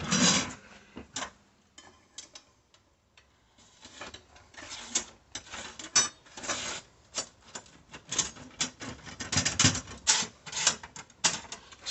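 Rapid clicking and rattling of a laser-bed honeycomb replacement's comb strips as they are handled and a holding rod is slid through them. The clicks are sparse at first and become a dense, irregular run from about four seconds in.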